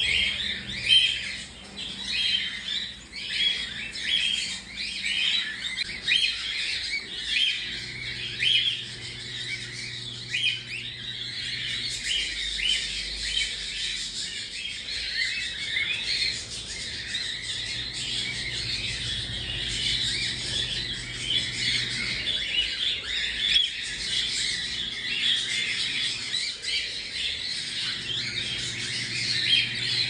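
Cockatiel chicks calling: a rapid string of short, high calls, several a second, that run together into continuous chatter from about ten seconds in.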